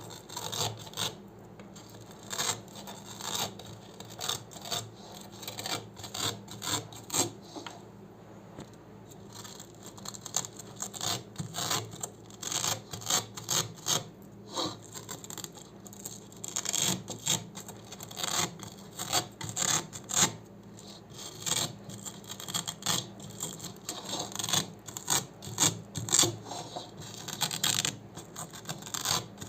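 Velcro hook-and-loop fastener being ripped apart and rubbed over and over: a long irregular run of short, crunchy rasping tears, with some louder than others.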